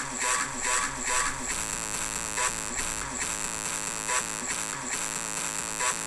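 Funk remix music with a fast repeating beat, made of buzzing, distorted noise and voice-like samples.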